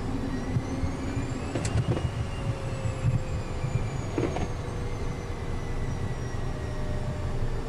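Cockpit sound of a Citation business jet taxiing: a thin turbine whine that slowly rises then eases off, over a steady, irregular low rumble from the airframe rolling on the taxiway. A sharp click comes about a second and a half in.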